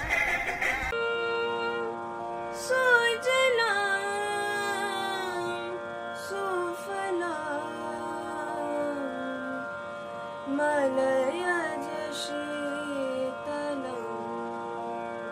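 A woman singing solo: a slow melody with long gliding, ornamented notes over a steady drone.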